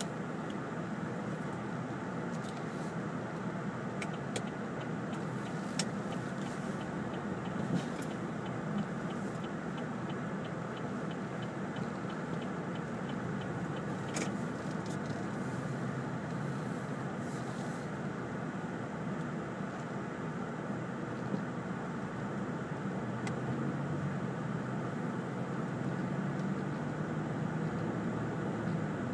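Steady road noise of a car driving, heard inside the cabin: engine and tyre hum, with a few faint clicks, growing a little louder near the end.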